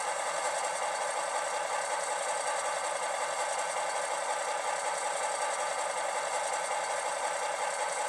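Model diesel locomotive sound from a LokSound v5 decoder: a recorded EMD MP15DC switcher engine running steadily, played through two small ESU sugar cube speakers, so it sounds thin with little bass.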